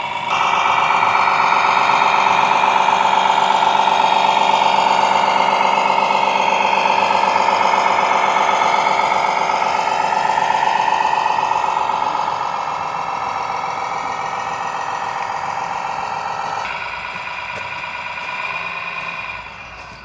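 Engine sound of a radio-controlled MAN truck model, a sound module playing a diesel truck engine running and revving as the truck drives. It gets louder just after the start and eases off in the second half.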